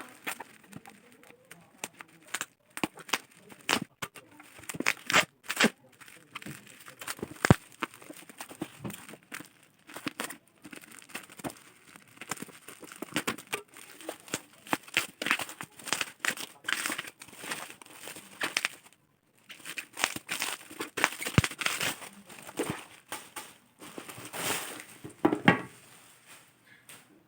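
Plastic parcel wrapping and bubble wrap being handled and pulled apart, crinkling and tearing in irregular crackles, with a short lull about two-thirds of the way through.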